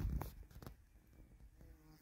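A few close knocks and rubs, as of a phone being handled, then faint outdoor quiet with a brief, faint pitched sound near the end.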